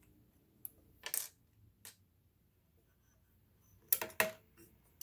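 Light metallic clicks and clinks from hands handling the needle area and buttonhole attachment of a Kenmore sewing machine, with the machine not running. A few separate clicks, the loudest a quick pair about four seconds in.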